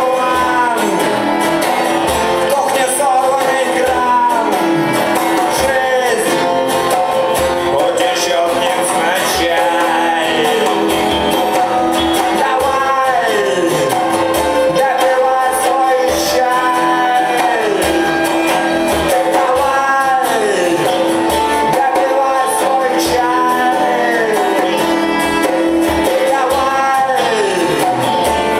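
Live band playing a song on acoustic guitar, electric guitar and djembe, with a man singing.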